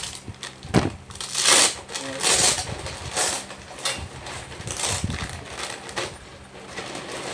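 Rustling and crinkling of a Foodpanda insulated delivery bag's nylon shell and foil lining, pulled and folded by hand in a series of irregular bursts.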